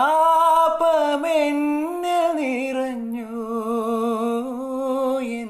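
A young man singing solo and unaccompanied, his voice bending through ornamented runs and then holding one long note with steady vibrato.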